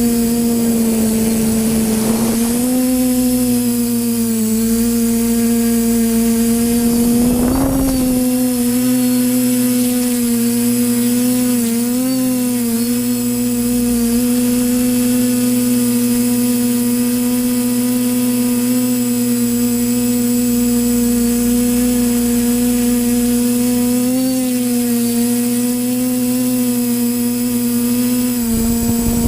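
Electric motors and propellers of an FPV quadcopter in flight, whining at a steady pitch with small dips as the throttle changes. Two short rushes of noise come through about two and seven and a half seconds in.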